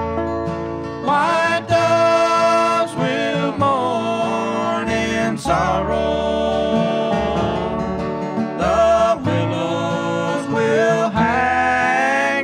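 Bluegrass band playing a slow song on acoustic string instruments, with guitar, banjo and other plucked strings over an upright bass.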